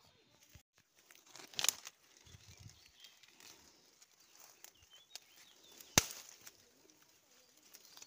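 Rustling and crackling of grass and undergrowth being pushed through and grabbed by hand, with scattered clicks and two sharp snaps, one about a second and a half in and a louder one about six seconds in.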